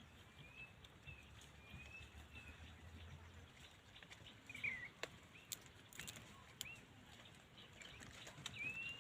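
Faint bird calls: several short whistled notes that arch up and down, a second or more apart, over a quiet outdoor background with a few faint clicks.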